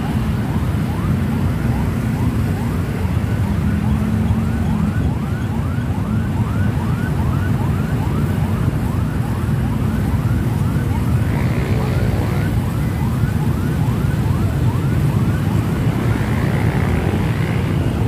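A siren yelping in quick rising sweeps, about two a second, over the loud, steady rumble of many motorcycle engines in a convoy.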